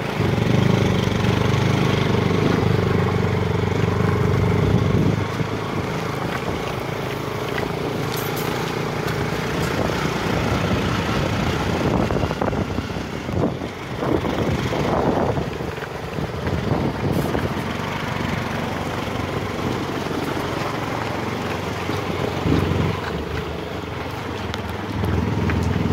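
Vehicle engine running steadily, heard from on board as it drives, louder for the first five seconds and then settling, with a few knocks and rattles around the middle.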